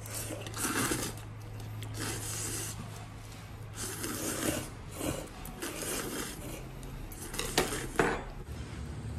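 Objects being handled: a series of short scraping and rubbing sounds, with two sharp clicks close together near the end. A low steady hum underneath fades out about four seconds in.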